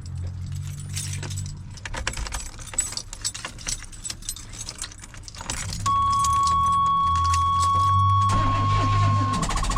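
Keys rattling in the ignition of a 1989 GMC Sierra, then a steady high warning tone about six seconds in. Near the end the starter cranks the engine on a weak battery and it acts like it wants to fire, but it doesn't catch.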